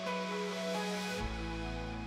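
Background music with held synth-like notes; a deep bass note comes in just past halfway.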